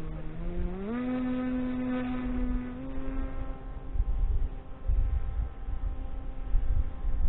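Electric motor and propeller of a radio-controlled delta-wing plane whining, rising in pitch about a second in, holding steady for a couple of seconds, then fading. Low wind rumble on the onboard camera's microphone runs underneath and grows stronger later.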